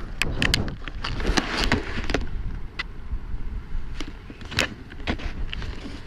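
Wind rumbling on an action camera's microphone, with a scatter of sharp clicks and knocks as the camera is handled and turned.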